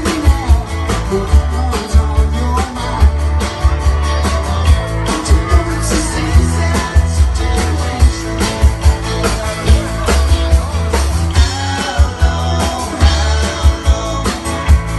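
A rock band playing live: a steady drum beat under heavy bass and electric guitar, with a singer's voice.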